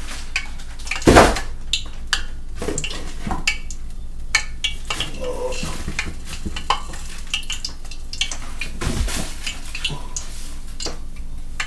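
Kitchen clatter: dishes, pans and utensils knocking and clinking, with a loud knock about a second in and another bout of knocks near nine seconds in, over a steady low hum.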